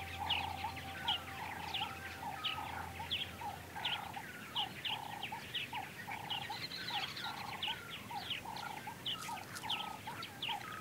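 Several wild birds calling at once. One repeats a short mellow note about twice a second beneath quick, high chirps and down-sweeping whistles from others.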